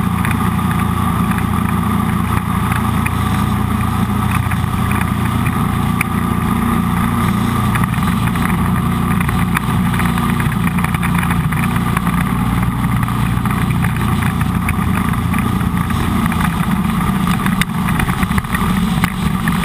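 Jet boat engine running steadily under way, with the hull moving through river water.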